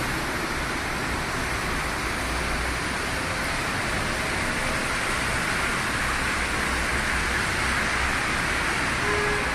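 Heavy rain beating steadily on a moving car, heard from inside the cabin, with the low rumble of tyres on the flooded road underneath.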